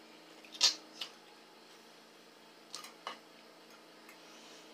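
A few short, scattered clicks of cutlery and eating at a table, the loudest about half a second in, over a faint steady hum.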